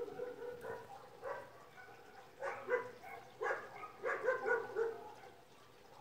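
A dog barking: a quick run of short barks in the middle, with a few softer ones before.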